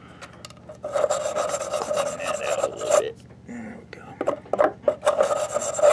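A tool scraping against the wood inside a birdhouse, clearing out its clogged drain hole. There is one long stretch of scraping about a second in, shorter scrapes after it, and another long stretch near the end.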